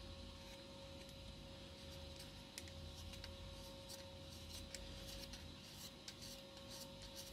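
Faint, scattered small clicks and scrapes as a metal standoff is twisted by hand into a wooden base plate to fasten an Arduino board.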